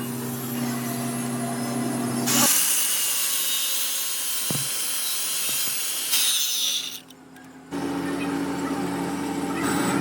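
Metal repair work on a cracked loader pin shaft: a steady machine hum, broken by a few seconds of harsh, hissing metalwork noise in the middle, with abrupt cuts between shots.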